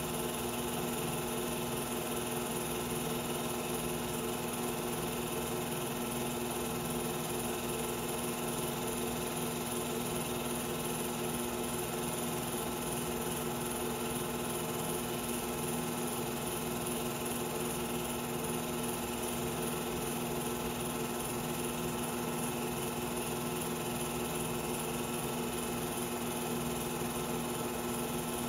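Film projector running: a steady mechanical whir with a constant hum.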